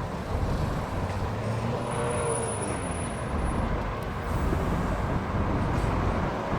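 Year-old Mercedes-Benz C-Class on the move, with a steady rumble of engine and road noise. A faint high-pitched squeal comes in about two seconds in and lasts under two seconds: the squealing noise that is the car's fault.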